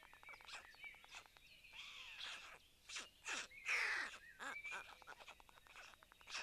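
Several wild birds calling and singing at once: many short chirps and calls overlapping, some sweeping down in pitch, the loudest a little past the middle.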